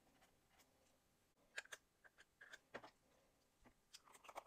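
Faint small clicks and taps of craft tools being put down and handled on a desk, starting about a second and a half in and bunching up near the end.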